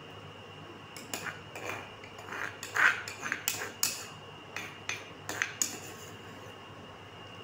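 Steel spoon scraping and clinking against a stone mortar and a clay bowl while mashed eggplant is scooped across: a run of short clinks and scrapes starting about a second in, the loudest near the middle.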